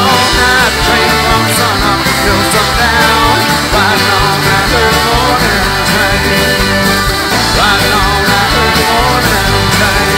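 A live country-rock band playing with acoustic guitar, mandolin, electric guitar and drums, a full, steady band sound.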